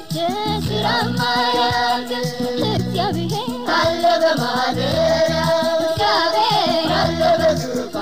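Ethiopian Protestant worship song (mezmur) in Amharic: lead singing with choir backing over a band with a bass line that repeats every couple of seconds.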